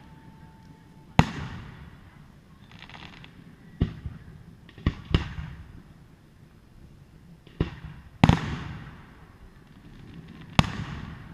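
Fireworks display: aerial shells bursting one after another, about eight sharp booms at irregular intervals, some in quick pairs, each followed by a fading echo. A brief crackle sounds about three seconds in.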